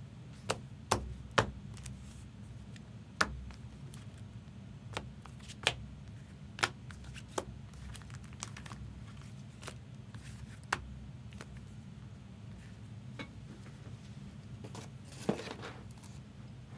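Sharp clicks and taps of trading cards and rigid plastic card holders being handled on a desk, about a dozen scattered through, over a steady low hum.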